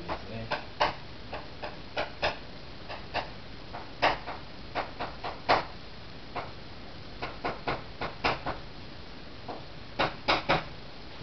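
Chalk writing on a chalkboard: irregular sharp taps and short strokes as characters are written, a few per second, with a brief pause before a quick cluster of taps near the end.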